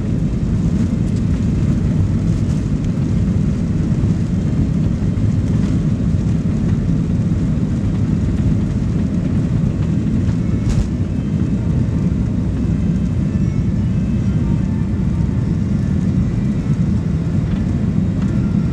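Cabin noise of a Boeing 737 Next Generation taking off: its CFM56-7B engines at takeoff thrust make a loud, steady, deep rumble through the takeoff roll and liftoff. A single sharp click about halfway through.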